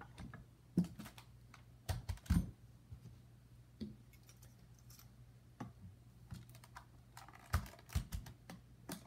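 Scattered clicks and knocks of hard plastic parts being handled and set on a workbench as a DJI Phantom 4 gimbal is fitted back onto the drone body, with a few heavier thumps about two seconds in and again near the end, over a faint low hum.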